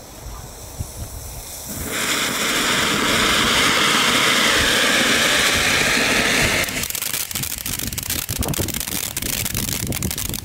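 Small category 1 fountain firework: the fuse fizzes quietly, then about two seconds in the fountain catches and sprays with a loud, steady hiss. Near seven seconds the hiss gives way to dense crackling.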